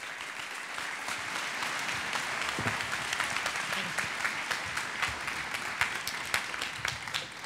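Audience applauding, building over the first couple of seconds and then holding steady.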